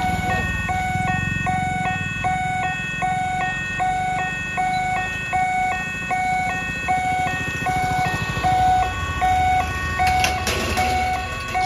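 Railway level-crossing warning hooter sounding a repeating electronic pattern of alternating high and low beeps, a bit more than once a second, warning of an approaching train. Motor scooter engines run underneath and fade out about nine seconds in, and a few sharp knocks come near the end.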